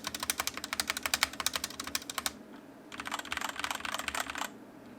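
Typing on a SteelSeries Apex 7 TKL mechanical keyboard with linear Cherry MX Red switches and double-shot PBT keycaps: two quick runs of key clacks with a short pause between them.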